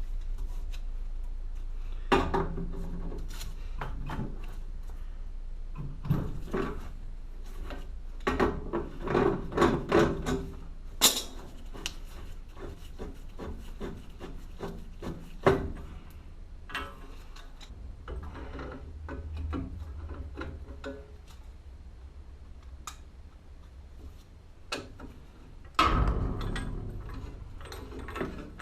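Irregular knocks, clicks and rubbing or scraping of hands and tools handling parts, with a louder burst of noise near the end.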